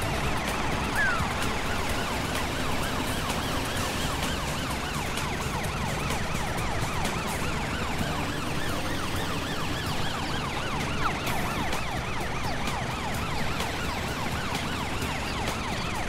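Emergency sirens of a cartoon fire truck and police car sounding together: several fast up-and-down siren sweeps overlapping, with a steady low rumble underneath.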